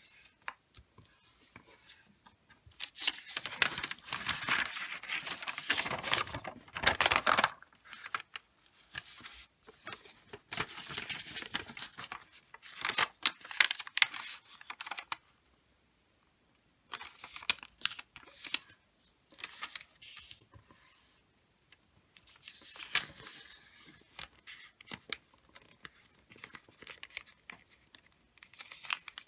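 Sheet of wrapping paper being folded and creased by hand: rustling and crinkling in irregular bursts as it slides and is pressed flat, loudest in the first several seconds, with a brief pause about halfway through.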